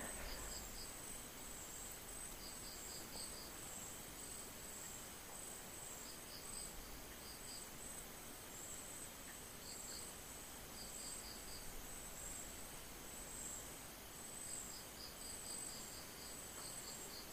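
Faint insects chirping in the background: a steady high trill, with short groups of three to five quick chirps every few seconds.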